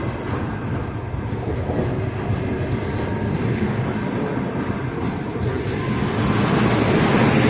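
Passenger train arriving: the steady rumble of its wheels on the rails with a few faint clacks, growing a little louder near the end.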